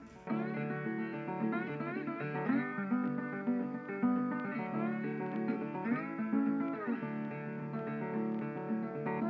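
Background music: an acoustic guitar playing a plucked melody, starting a moment in.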